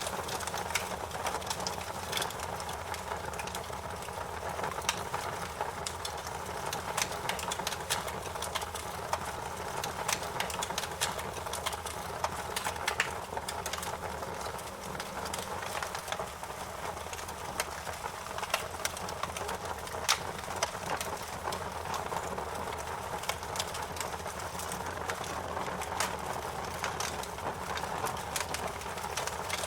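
Campfire crackling: a steady rush of burning wood with frequent irregular sharp pops and snaps, one of the sharpest about two-thirds of the way through.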